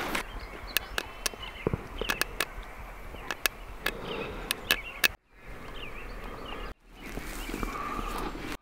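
Scissors snipping a paper tag in a run of sharp clicks over soft rustling of dry grass and leaves. The sound cuts out briefly twice after about five seconds.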